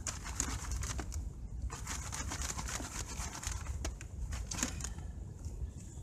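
Gravel rattling and scraping as it is rubbed and shaken by hand in an 8 mm sieve over a bucket, a dense run of small stony clicks that thins out near the end.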